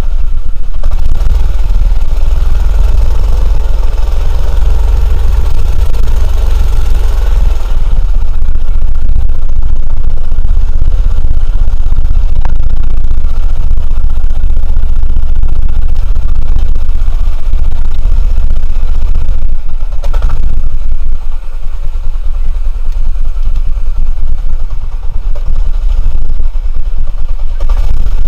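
Small engine of a homemade off-road go-kart running loud and rough as the kart is driven over dirt. It works harder for the first several seconds, then settles, easing a little about three-quarters of the way through.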